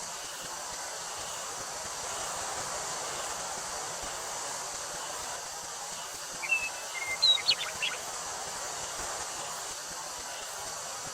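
Wind rustling through a wheat field with a steady high drone of summer cicadas. About six and a half seconds in, a bird gives a short burst of quick chirps, the loudest sound.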